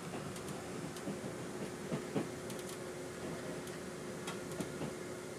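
Running noise inside a moving Taiwan Railway EMU800 electric multiple unit: a steady hum with one constant tone, and a few scattered clicks and knocks from the car.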